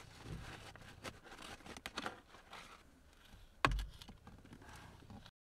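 Faint rustling and small clicks of hands fitting the metal retainer back into a new shifter boot, with one sharper knock nearly four seconds in.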